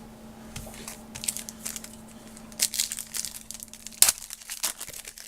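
Trading-card pack wrapper being crinkled and torn open in irregular crackling bursts, with one sharp snap about four seconds in.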